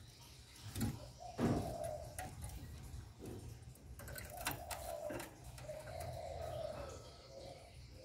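Spotted dove cooing: several short, low coo phrases. A loud thump comes about a second and a half in, with a few sharp clicks.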